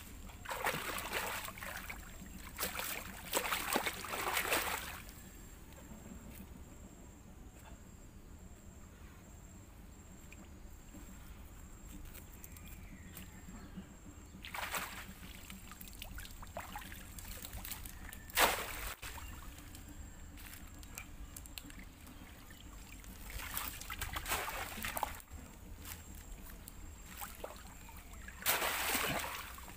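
Shallow water sloshing and splashing in short bursts as a bamboo polo basket trap is worked into the water by a man wading. The loudest splash comes near the end, as the trap is lifted out.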